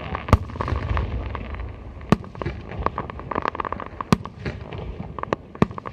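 Aerial fireworks shells bursting overhead: several sharp bangs, about one every two seconds with two close together near the end, over continuous lighter crackling.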